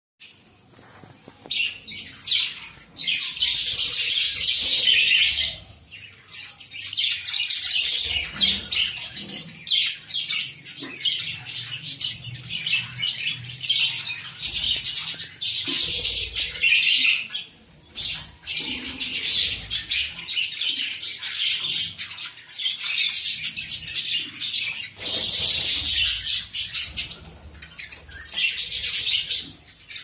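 Caged budgerigars chirping and chattering together in dense bouts of several seconds each, with short lulls between.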